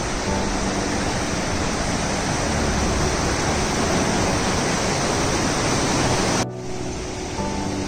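Loud, steady rushing of a mountain river or waterfall, with faint music underneath. About six and a half seconds in, the rush cuts off abruptly to a quieter, duller noise.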